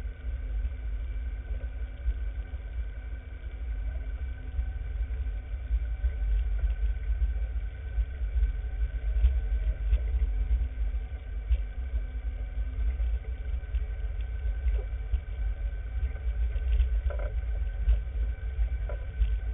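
Off-road vehicle driving over a rocky trail, heard from on board: a heavy, uneven low rumble from the engine and the jolting ride, with a few short knocks near the end.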